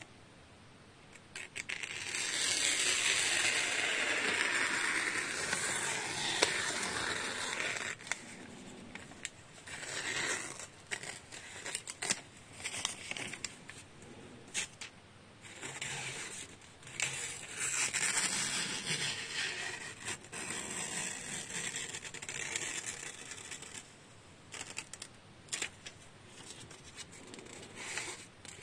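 Paper being sliced on a freshly sharpened VG-10 knife edge as a sharpness test after the diamond stone: a scratchy, rustling cut. One long stretch of cutting comes a couple of seconds in, then a string of shorter cuts.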